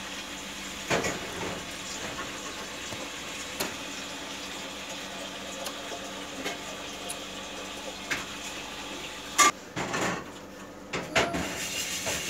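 Steady low hum with scattered knocks and clicks of things being handled, a handful spread out and a louder cluster about nine and a half to eleven and a half seconds in.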